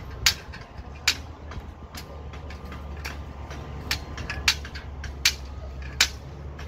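Sharp hammer strikes on steel column formwork, about one every three-quarters of a second with a sparser stretch early on, over a steady low machine hum.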